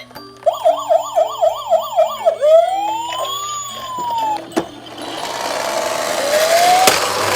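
Toy emergency vehicle's electronic siren: a fast yelp rising and falling about four times a second, then one slow wail that climbs and falls away. A noisy rushing sound fills the last two seconds.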